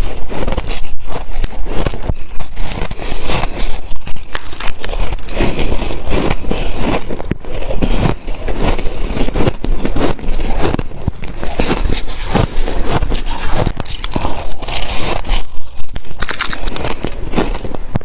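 Close-miked biting and crunching of shaved ice: a dense run of sharp, irregular crunches and crackles, many a second.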